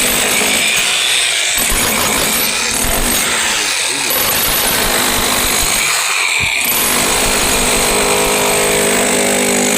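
A power tool running loudly and continuously, with a few brief breaks, its motor settling into a steadier pitch in the last few seconds.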